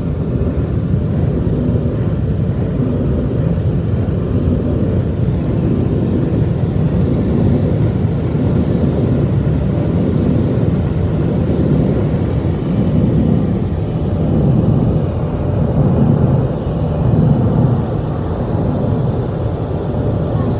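Car wash air dryers running: electric-motor centrifugal blowers give a loud, steady roar of rushing air, heard from inside the car. The roar swells somewhat in the later part.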